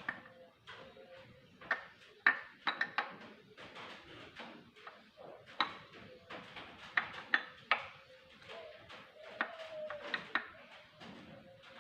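Metal tools and engine parts clinking and clattering at irregular intervals, with a few sharper ringing clinks, as parts are handled during a diesel engine repair.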